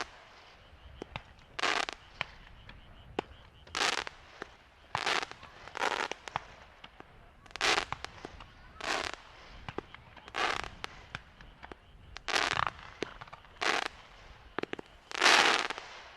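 Fireworks going off in a rapid series: about a dozen short, sharp bursts, roughly one a second, the last one near the end longer than the rest.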